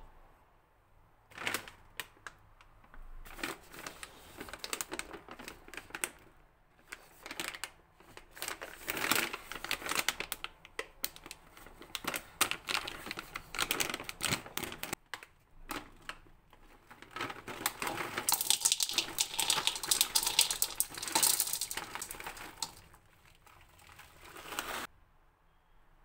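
Crinkling and crackling of a plastic granola bag as it is handled and torn open. Then, from about 18 to 23 seconds in, a denser rattling rush as granola pours from the bag into a coconut-shell bowl.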